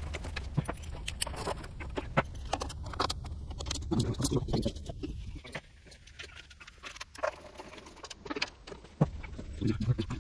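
Scattered small clicks and light knocks of hand tools and parts being handled in a car's engine bay, with some rustling, irregular and never settling into a rhythm.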